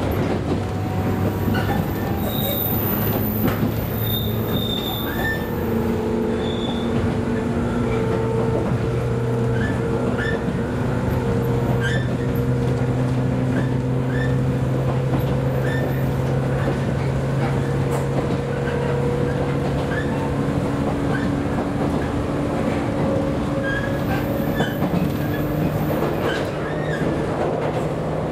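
Inside the motor car of a JNR 103 series electric train running at speed: the steady hum and whine of its traction motors and gears over the rumble of the wheels, with occasional rail-joint clicks. A high squeal from the wheels comes a few seconds in and again near the end.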